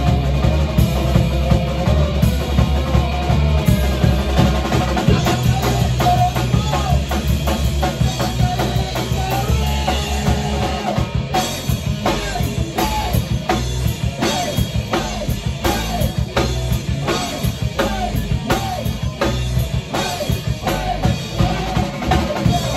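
A rock band playing live in a rehearsal room: electric guitars and a drum kit together at full volume. About halfway through, the heavy low end drops away and the drum strikes stand out on a steady beat over the guitars.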